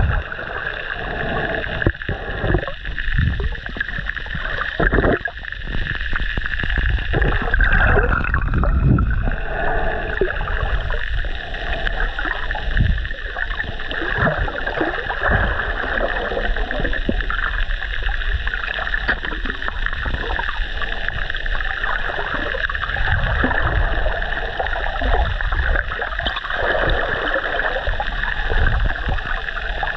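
Water sloshing and rumbling against a camera held underwater, with irregular muffled bumps as it is moved through the water.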